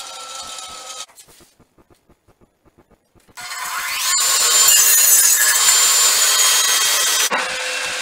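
A 10-inch radial arm saw winds down, goes nearly silent for about two seconds, then starts up with a rising whine. It crosscuts a pine fence board for about three seconds, loud and steady. After the cut the blade keeps spinning, its pitch slowly falling.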